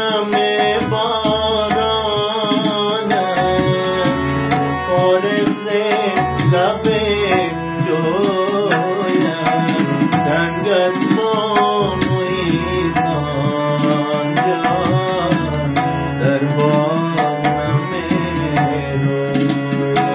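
A man sings with ornamented, wavering melody lines, accompanying himself on a harmonium that sustains steady reed chords. Tabla drums play a steady rhythm underneath.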